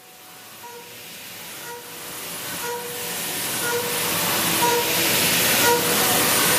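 Four-flute end mill side-milling hardened 50 HRC medium-carbon steel at 7,200 RPM on a CNC mill: a dense, hissy cutting noise, strongest in the highs, with a faint tone breaking in and out about once a second. The sound fades in from silence and grows steadily louder.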